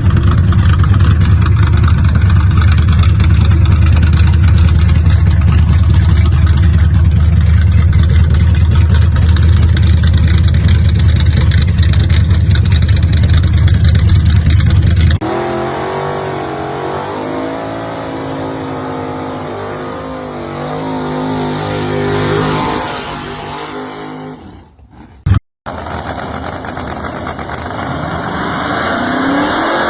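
Gasser hot rod engines in a string of short clips. First a very loud engine running steadily, heavy in the low end. After an abrupt cut, an engine idles with a wavering note. After a brief break, another engine's pitch rises as it revs near the end.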